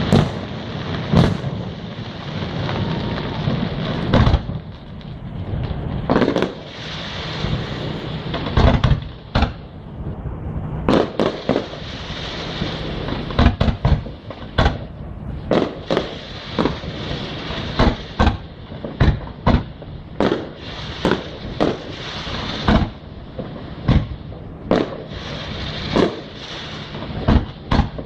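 Fireworks display: a long, irregular run of loud aerial shell bursts, each a sharp bang, over a steady hiss. The bangs come faster and more evenly in the second half, about one a second or quicker.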